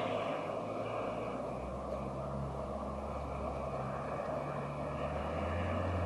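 Land Rover Discovery's engine running as a steady low drone while the vehicle pushes through water up to its bonnet, the drone growing a little louder about five and a half seconds in.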